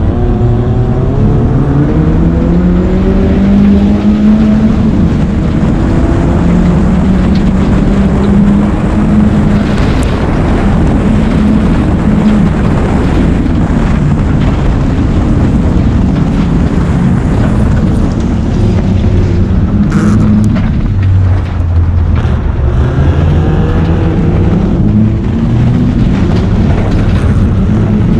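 BMW rallycross car's engine heard from onboard, under hard throttle through the gears, with its pitch climbing in the first few seconds, dropping low about two-thirds of the way in and rising again. A steady rush of tyre and gravel noise from the loose dirt surface runs underneath.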